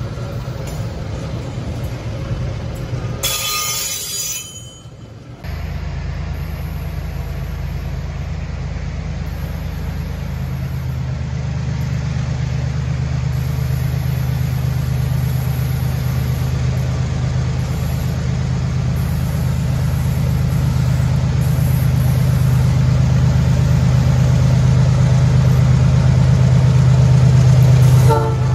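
Loaded pulp boxcars rolling past on steel wheels, with a brief hiss a few seconds in. Then the steady low drone of approaching Rumo diesel locomotives, growing gradually louder as they come closer.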